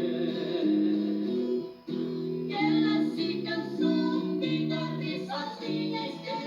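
Sertanejo raiz duet: two male voices singing high, close two-part harmony over guitar accompaniment.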